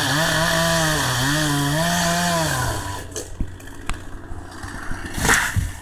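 Chainsaw engine running, its pitch dipping and recovering about once a second, then dropping away about three seconds in. A short burst of noise follows near the end.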